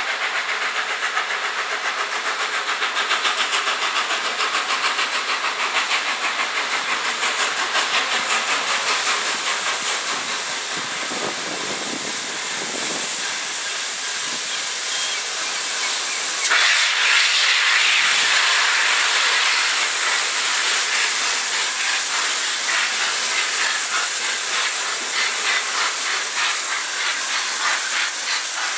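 Peppercorn A1 steam locomotive 60163 Tornado moving slowly with its cylinder drain cocks open: a loud steady hiss of escaping steam over rhythmic exhaust beats. The hiss gets suddenly louder about halfway through.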